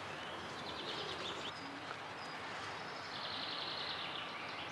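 Outdoor ambience: a steady background hiss with birds twittering faintly in two short spells, about a second in and again around three seconds in.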